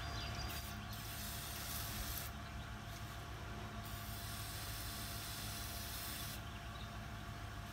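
Aerosol insecticide can hissing as it is sprayed into a yellow jacket entry hole, in two long bursts: one at the start and a second from about four seconds in that stops sharply.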